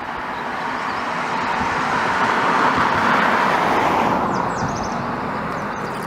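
A vehicle passing: a swell of road noise that builds to a peak about halfway through, then fades away.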